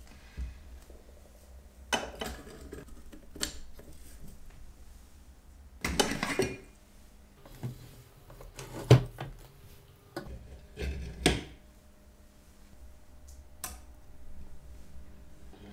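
Small metal tools and parts clinking and knocking on a watchmaker's workbench: about six separate taps and short rattles, the sharpest one about nine seconds in.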